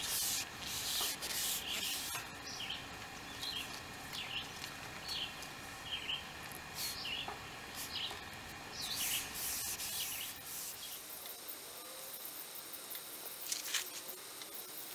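Rubbing and rustling of a rubber Megawear keel guard being worked by hand against a fiberglass boat hull, in a burst near the start and another about two thirds through.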